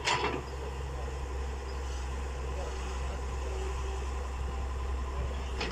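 IHI crawler excavator's diesel engine running steadily as the machine digs mud, a low even hum. A short sharp burst of noise comes right at the start and another near the end.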